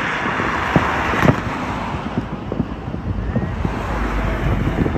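A car driving past on a street at night: tyre and engine noise swells and fades over the first two seconds. After that, a low wind rumble on the microphone and a few scattered sharp clicks.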